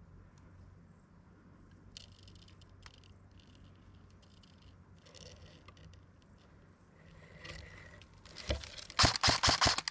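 Faint rustling and scraping, then near the end a quick burst of about seven sharp cracks in under a second from an airsoft rifle firing.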